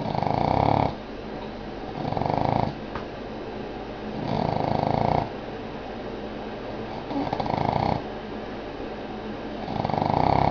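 Boston terrier snoring in its sleep: five short snores, one about every two to two and a half seconds.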